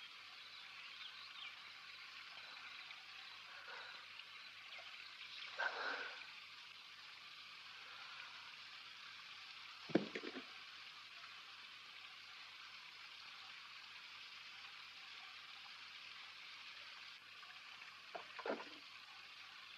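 Faint outdoor ambience: a steady high hiss with a few short calls, and one sharp knock about halfway through.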